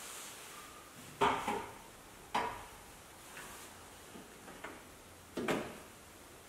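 Five short knocks and clicks of tail light parts being handled and pressed into place on a Porsche 911, the loudest about a second in and near the end.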